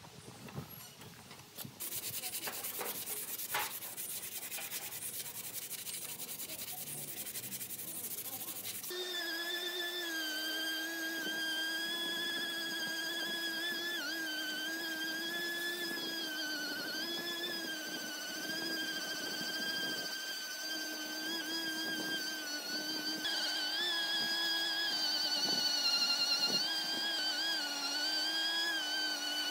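Orbital sander sanding hardened body filler: first a harsh rasping hiss, then from about nine seconds a steady motor whine that wavers in pitch as the pad is pressed and moved.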